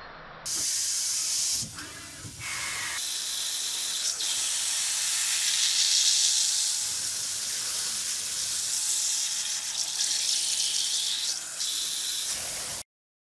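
Coolant jets hissing steadily during CNC machining. The hiss starts suddenly about half a second in, drops briefly near two seconds, and cuts off sharply near the end.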